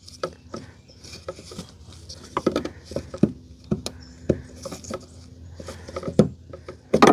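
Irregular light clicks, taps and scrapes of a locking-ring tool being worked onto a fuel pump's ribbed locking ring, not yet seating.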